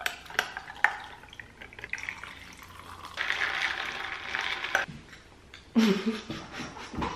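Whisked matcha poured from a glass jar over ice cubes in a tall glass, with a few sharp clinks of ice in the first second. A metal straw then stirs the iced drink for about a second and a half, ice rattling against the glass, followed by a short sip through the straw.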